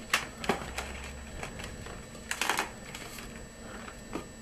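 Latex modelling balloon squeaking and rubbing under the fingers as it is twisted into shape: a few short squeaks, with a tight cluster about halfway through.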